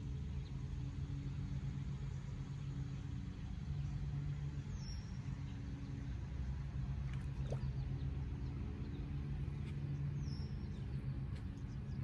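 A steady low motor hum that swells slightly now and then, with two short, high chirps that fall in pitch, about five and ten seconds in.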